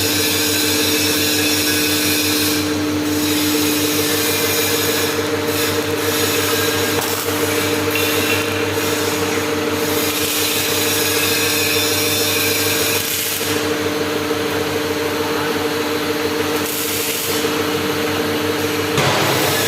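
Hydraulic press power unit running steadily: the electric motor and pump hum and whine under load. Near the end one of the steady tones drops out and the sound changes.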